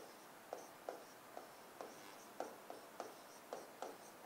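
A pen writing on a board in short, quick strokes, about two or three a second, faint, as a heading is written out.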